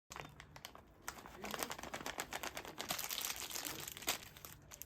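Crinkling and rustling with many rapid small clicks, starting abruptly. It grows busier through the middle, has one sharper click about four seconds in, and eases off near the end.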